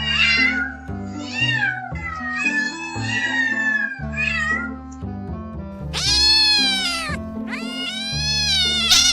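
A cat meowing over background music: several short meows in the first half, then two long, loud meows, each rising and then falling in pitch.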